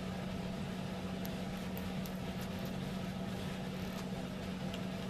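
Steady low background hum, with a few faint small clicks of the new screen's wiring harness connector being lined up and slid into its socket.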